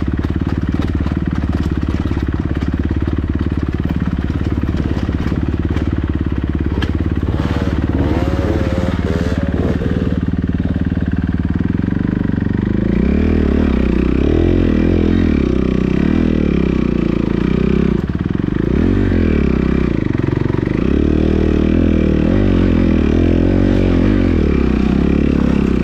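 Kawasaki KX250F four-stroke single-cylinder dirt bike engine running under the rider's throttle on a rough trail. It starts at a fairly steady low pitch, with a few knocks and rattles about a third of the way in. From about halfway the revs climb and drop repeatedly as the throttle is worked.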